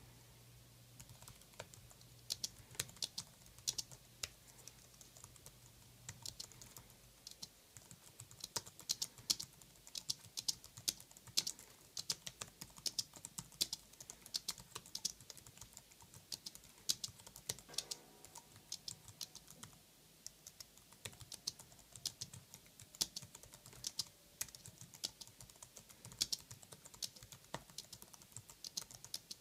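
Typing on a 2011 Apple Wired Keyboard: its low-profile scissor-switch keys give quiet, soft clicks in a continuous run of keystrokes, starting about a second in.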